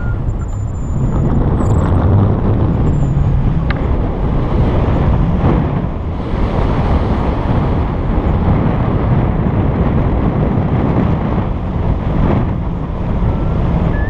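Wind rushing and buffeting over an action camera's microphone held out on a pole in paraglider flight: a loud, steady rumbling rush that swells and eases slightly.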